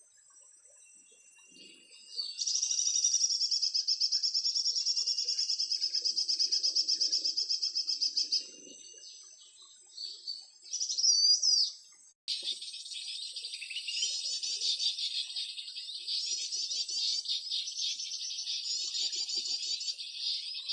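Birdsong played from an MP3 speaker as a trapping lure. A fast, very even trill runs for about six seconds, a short call follows, and then after a brief silence a denser, busier song starts abruptly a little past the middle and keeps going.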